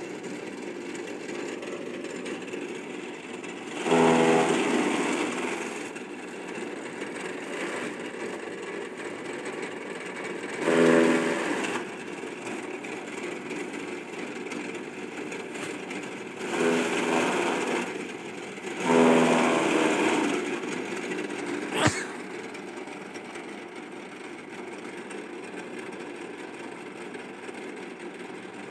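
Electric chaff cutter running, its belt-driven blades chopping grass and straw. The sound swells louder four times for a second or two as bundles are fed in, and a single sharp click comes about three-quarters of the way through.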